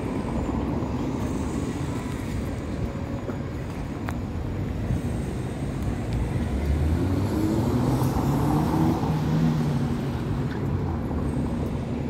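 Street traffic running steadily, with one motor vehicle passing close: its engine note rises about seven seconds in and is loudest around nine seconds before fading.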